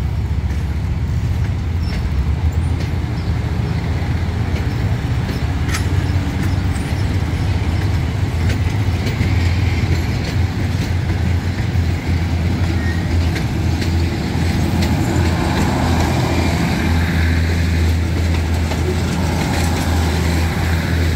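SRT diesel railcar set passing slowly at close range: its diesel engines running with a steady low hum, with a few sharp clicks from the wheels over rail joints and points.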